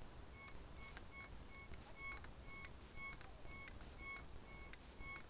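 Desert Gold metal detector giving its target signal in all-metal mode: short electronic beeps alternating between a high and a lower tone, about two a second, as the coil sweeps back and forth over a buried coin. The beeps are faint and muffled because the speaker is taped over.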